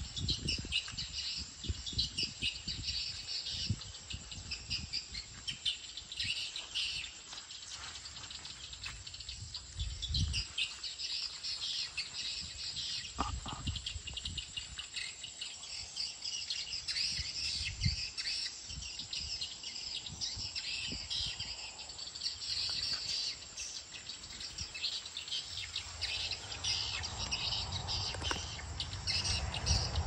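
Swiftlets chirping and twittering in a dense, unbroken high chatter, with occasional low thumps.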